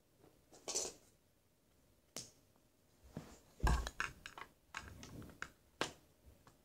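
Plastic Lego bricks clicking and knocking as they are handled and pressed together, a scatter of separate clicks with a heavier thump about halfway through.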